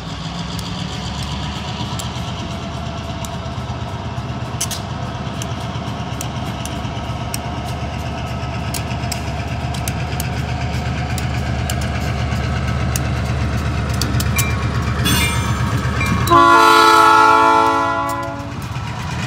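Two EMD GP15-1 diesel locomotives running past, the low engine rumble growing louder as they approach, with scattered clicks from the wheels on the rail. About 16 seconds in, the locomotive horn sounds one long chord of about two seconds that fades at the end.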